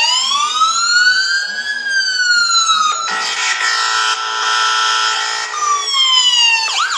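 Anti-Theft Alarm app sounding its siren from a mobile phone, set off because the phone was touched without the owner's permission. A wail rises and then slowly falls, a harsh steady blare follows for about three seconds, there is another falling wail, and near the end a fast yelping warble begins.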